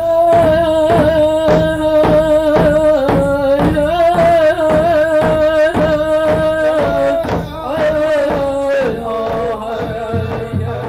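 Okanogan Syilx song sung by men over a steady drumbeat, the voice holding long, wavering notes that step down in pitch about a third of the way in and again near the end.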